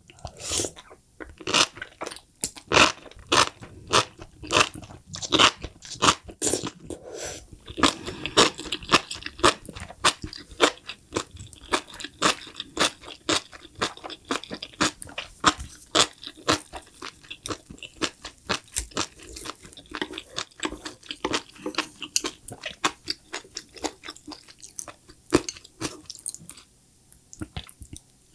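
Close-miked chewing of enoki mushrooms in spicy sauce with a fried quail egg: a dense run of crisp crunching and crackling, several sharp clicks a second, quieter near the end.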